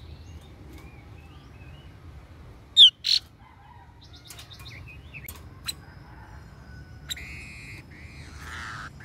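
Laughingthrush (khướu bông cúc) calling. Two loud, sharp squawks come about three seconds in, then scattered short chirps and clicks, then a longer wavering call near the end.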